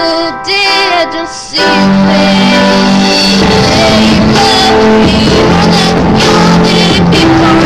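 Music with singing: a keyboard and voice at first, then about a second and a half in a loud full band comes in and carries on.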